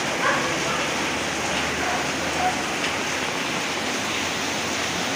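Steady rain falling, an even continuous hiss with no let-up.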